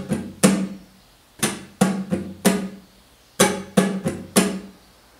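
Flamenco guitar played with sharp strummed chords in the soleá rhythm, in groups of four strokes counted "1, 2, 3, 1". Each chord rings out briefly, with a pause of about half a second before the next group.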